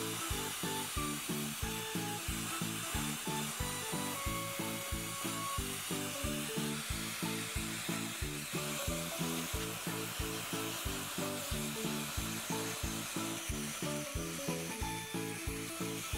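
Freeze spray hissing steadily from its nozzle straw onto a gummy bear, over background music with a quick, regular low pattern of about four notes a second.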